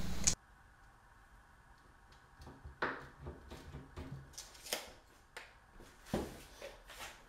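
Tape measure and pencil handled on a prefinished hardwood tread board while a measurement is marked: a run of soft scrapes and light taps starting about two seconds in, the loudest about three, five and six seconds in.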